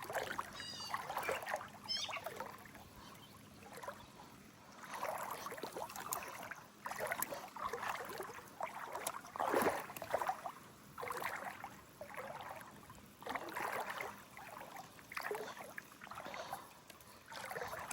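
Legs wading through creek water: a swish and slosh of water with each step, roughly once a second.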